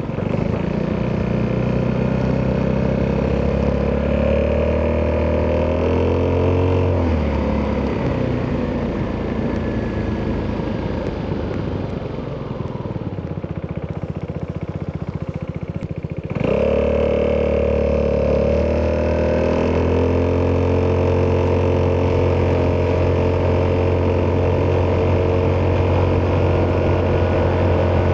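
Italjet Dragster 200's single-cylinder four-stroke DOHC engine through an Akrapovic exhaust, under way: revs climb under throttle for the first six seconds or so, then the throttle closes and it runs quieter off load. About sixteen seconds in the throttle opens sharply and the engine pulls at a steady, louder note.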